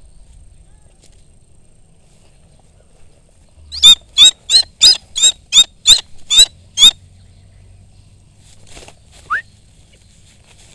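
Rufous-bellied eagle calling: a fast series of about nine shrill, high-pitched calls, roughly three a second, then one short rising note a couple of seconds later.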